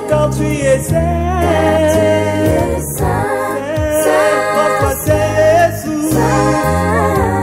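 Background music: a sung song with several voices over a bass line and a steady beat.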